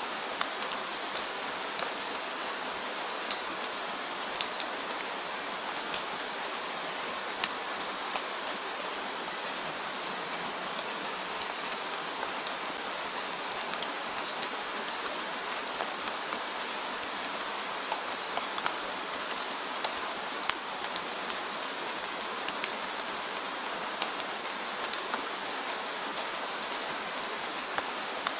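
Steady rain falling, an even hiss with many scattered sharp drop impacts.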